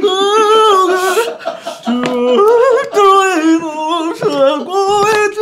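A solo singing voice in a slow ballad, holding long notes with vibrato and sliding between pitches, with little or no accompaniment heard under it.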